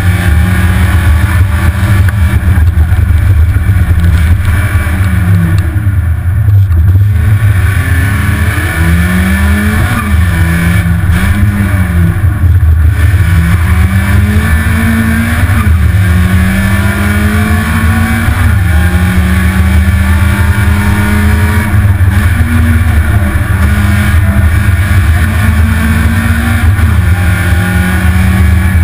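BMW 318is rally car's 1.8-litre four-cylinder engine heard loud from inside the stripped cabin, driven hard with its revs repeatedly climbing and dropping, over a heavy low rumble.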